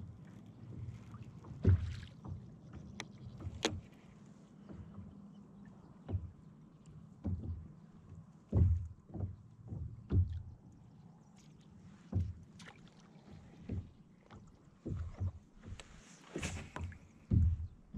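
Plastic kayak hull knocked by small waves and the angler's movements, in irregular low thumps every second or two. Near the end a short hissing burst comes as the rod is swung into a cast.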